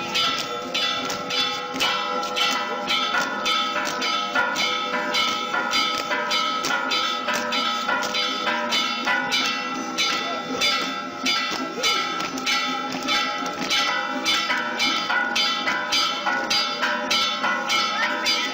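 Church bells of San Rafael church ringing in a fast, even peal, several strikes a second, their tones ringing on and overlapping.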